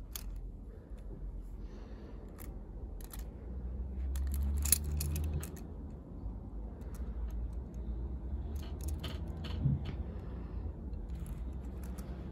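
A Majorette diecast toy car handled on a carpet: scattered small clicks and rustles as it is turned over and rolled by hand, with a low rumble of handling noise swelling about four seconds in.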